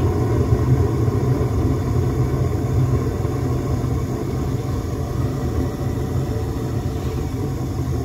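Gas furnace in heating mode with its burners just lit: a steady low rumble from the gas flames and the draft inducer motor.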